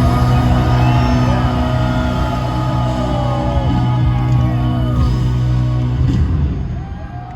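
Live rock band holding a final sustained chord, with crowd whoops and cheers over it; the chord dies away about six seconds in while the cheering goes on.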